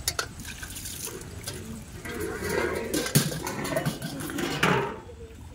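Water sloshing and splashing as metal plates and pots are rinsed in pond water, with a few sharp clinks of metal on metal, the loudest about three seconds in.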